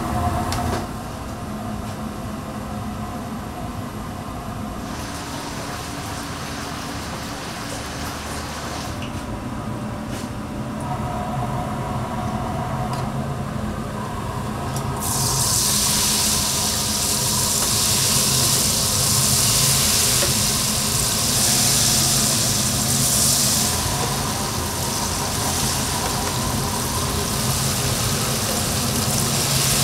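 Food-stall kitchen noise: a low steady hum, then about halfway through a loud, steady hiss sets in and holds.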